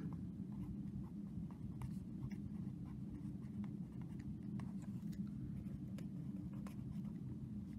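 Pen writing on lined notebook paper: faint, irregular scratching strokes of the tip on the page, over a steady low hum.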